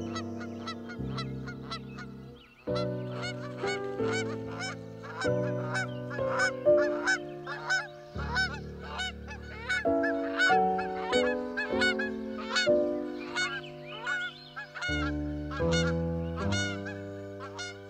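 A flock of geese honking over and over, many short calls a second, over slow, sustained chords of background music.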